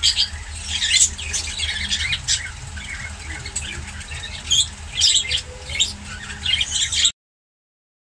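Many caged birds squawking and chirping in short, shrill, repeated calls, over a steady low hum. The sound cuts off suddenly about seven seconds in.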